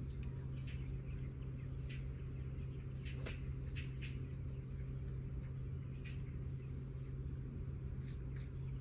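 Birds chirping now and then, short high calls spaced a second or more apart with a small cluster in the middle, over a steady low hum.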